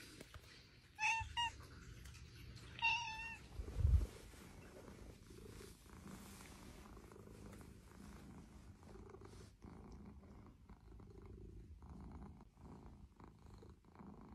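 Two short, high cat meows about one and three seconds in, then a low bump, then a domestic cat purring softly and steadily.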